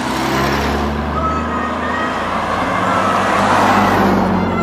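Car driving past close by, its engine and tyre noise growing louder to a peak about four seconds in, then easing.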